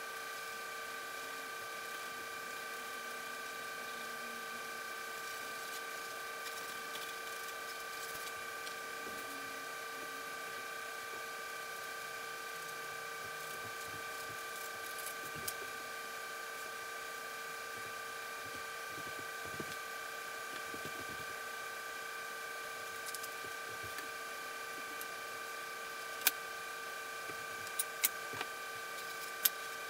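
A steady hum made of several fixed tones, with a few sharp clicks near the end.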